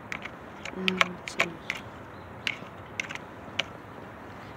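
Cats crunching dry kibble: irregular crisp clicks, a few a second.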